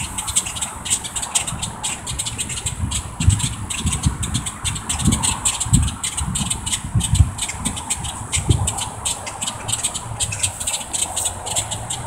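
A flock of grackles in the trees overhead keeps up a dense, rapid clicking and chattering. Wind buffets the microphone with irregular low thumps.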